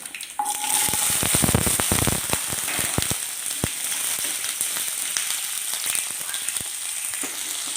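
Shallots dropped into hot coconut oil with spluttering mustard seeds and fenugreek. A loud sizzle starts suddenly about half a second in, with a run of sharp crackling pops over the next few seconds, then settles into a steady sizzle.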